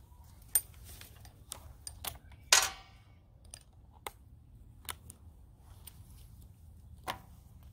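Scattered light clicks and knocks of tools being handled between drilling runs, with one louder short clatter about two and a half seconds in.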